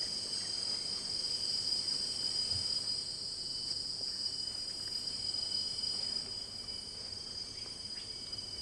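Steady, high-pitched chorus of insects such as crickets, droning on without a break.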